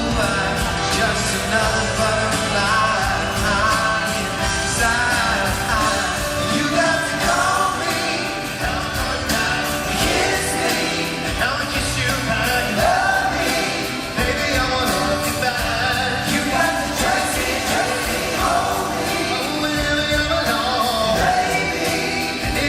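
Live pop music: a male vocal group singing over the band and backing music, loud and continuous, with the echo of a large arena.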